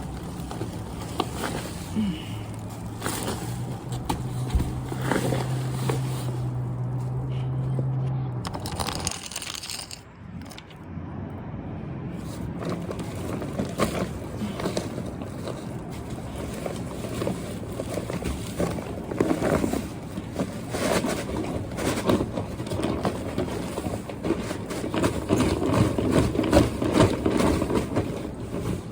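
Potting soil scraping and crumbling as a grow bag is tipped out and hands dig through the dirt for sweet potatoes: a long run of irregular rustling scrapes. A steady low hum lies under the first several seconds.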